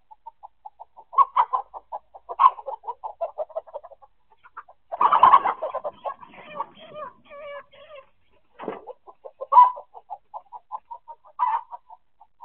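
Chickens alarm-clucking during a hawk attack: a fast run of short clucks, about five or six a second, broken by loud harsh squawks. The loudest is a long raspy squawk about five seconds in, followed by shorter pitched calls.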